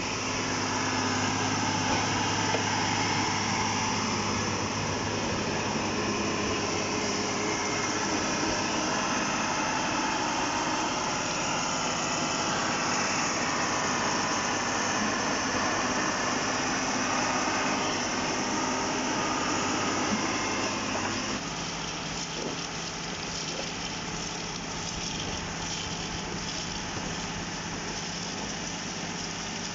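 Engine of an SQRS/PQRS track-relaying portal gantry running steadily with a constant hum. About two-thirds of the way through it drops abruptly to a quieter, lower note.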